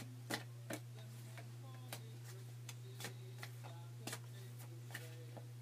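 Oracle cards being shuffled by hand: a string of short, light clicks and snaps at irregular spacing, over a steady low electrical hum.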